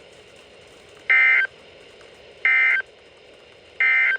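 Emergency Alert System end-of-message signal: three short bursts of buzzy digital data tone, about 1.3 seconds apart, closing the alert. A faint steady hiss lies underneath.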